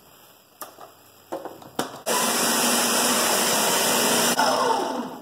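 A few clicks as the lid is fitted onto a countertop blender jar, then the blender motor starts abruptly about two seconds in and runs loudly for a couple of seconds, blending a milkshake of ice cream, milk and ice again to break up the ice chunks still left. It then drops off and winds down near the end.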